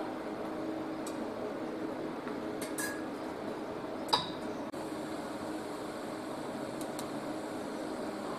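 Steady hum and hiss of a welding setup between welds, broken by a few faint metallic ticks and one sharp metal clink about four seconds in.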